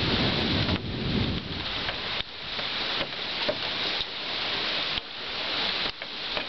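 Rain falling steadily in a thunderstorm, a hiss of drops, with the low rumble of thunder dying away in the first second.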